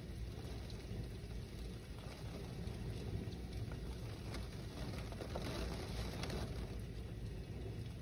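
Steady rain pattering on window glass, with scattered drop taps over a low rumble of wind.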